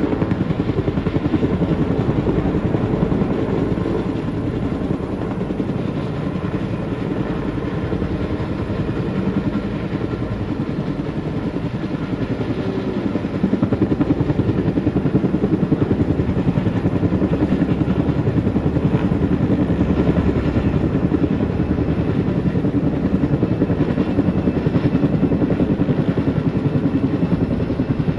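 Helicopter hovering to dip a firefighting water bucket on a long line, its rotors beating steadily; the sound gets louder about halfway through.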